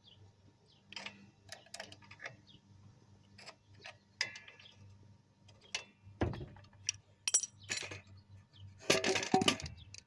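Scattered light metallic clinks, clicks and knocks of hand tools and hardware being handled, with a heavier thump about six seconds in and a longer rattle about nine seconds in.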